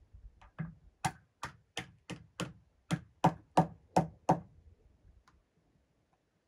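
A run of about a dozen sharp knocks, about three a second, growing louder and then stopping a little past halfway, with a couple of faint ticks after.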